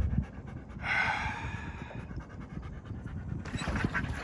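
Dog panting rapidly, with a brief louder hiss about a second in.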